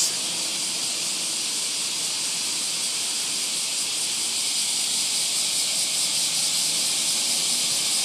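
A dense chorus of many cicadas shrilling together in summer, a loud, unbroken high hiss-like buzz.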